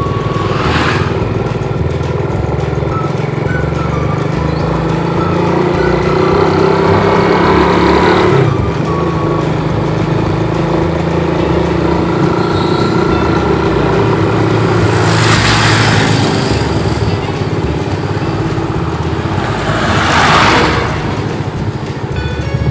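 Motorcycle engine running while riding along a road. Its note climbs, then drops sharply about eight seconds in. Three brief rushes of noise cut across it, near the start, around the middle and near the end.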